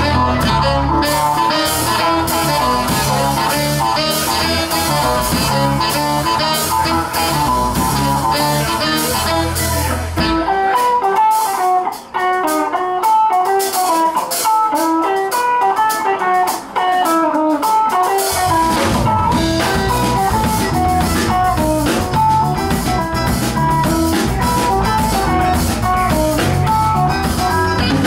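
A live band playing Latin rock with saxophone, electric guitar, bass guitar, keyboard and drums. About ten seconds in the bass and kick drop out for a lighter passage, and the full band comes back in some eight seconds later.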